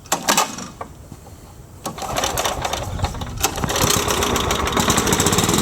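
Kohler 14-horsepower engine on a walk-behind commercial mower being pull-started on choke: a short clatter near the start, then about two seconds in the engine catches and runs, growing louder up to about four seconds in and then running steadily.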